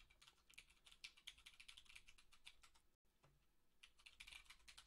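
Faint computer keyboard typing: a quick run of keystrokes, a short pause about three seconds in, then another brief burst of keys.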